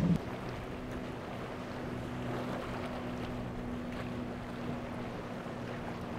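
Triple Mercury 300 outboard motors on a Monterey 385SE running at speed with a steady drone, over a rush of water and wind.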